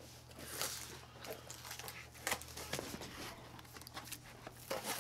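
A cardboard box being opened by hand, its flaps scraping and rustling, with a few light taps and scrapes spread through.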